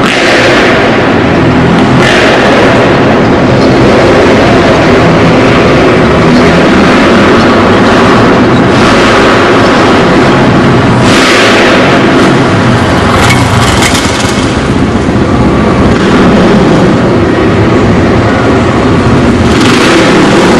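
Motocross motorcycle engines running hard around a dirt track, loud throughout, with several surges of throttle as the riders go over the jumps.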